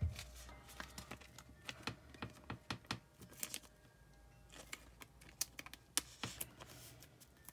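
A trading card being slid into a soft clear plastic card sleeve: faint, irregular light ticks and crinkles of thin plastic and card being handled, with a few sharper clicks in the second half.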